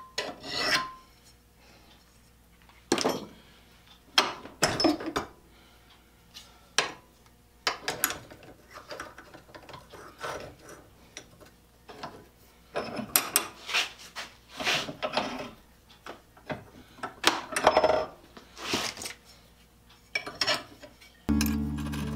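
Hand file scraping across a steel shear blade held in a vise, in a long series of irregular draw-filing strokes with short pauses between them. The shears are being sharpened because they had grown dull and catch when cutting plastic bags. Music comes in near the end.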